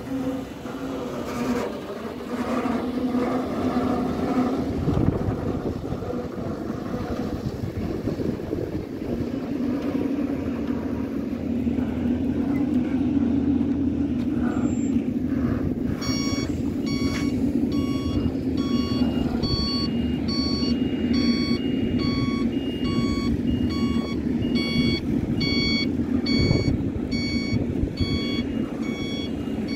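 Heavy truck's diesel engine running steadily as it moves a loaded lowbed trailer. About halfway through, a reversing alarm starts beeping at an even pace and keeps going.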